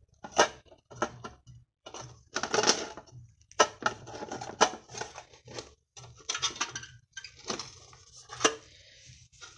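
Metal clinks and knocks with scraping in between as the aluminium case of a Ford A9L engine computer is handled and its cover taken off.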